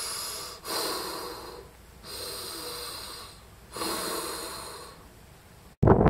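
Darth Vader–style breathing through the mask: four slow, hissing breaths, in and out, about a second each. Near the end it cuts off abruptly into louder rustling and wind noise on the microphone.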